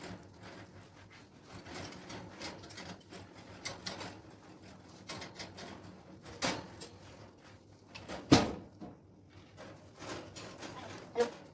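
Handling clatter from cleaning a birdcage: scattered light knocks, clicks and rustles, with one sharper knock about eight seconds in.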